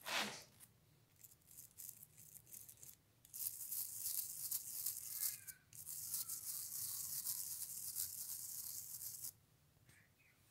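A stiff-bristled hand brush scrubbing an old Lockwood padlock clean. It starts with one sharp scrape, then a few short strokes, then about six seconds of fast, steady back-and-forth scrubbing that stops abruptly near the end.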